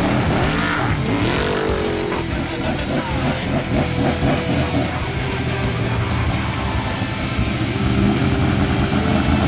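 Off-road race vehicle engine revving and passing, its pitch swooping up and down, with music playing along with it.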